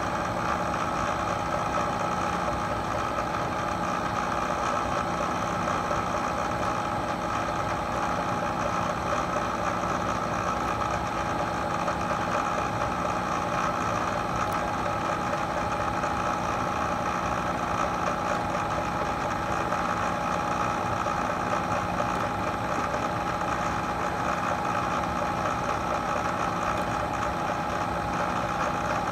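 Vertical milling machine running steadily, its spindle spinning a 3/4-inch Cratex abrasive stick that is brought down onto aluminum sheet to engine-turn (jewel) it. A steady hum with a few steady tones and no breaks.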